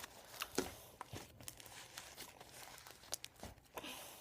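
Very sticky hand-played slime being squeezed and stretched, giving faint, irregular little clicks and pops.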